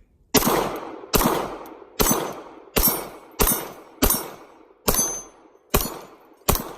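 A string of nine evenly paced 9mm pistol shots from a Glock 19, a little under a second apart, each trailing off in a long echo.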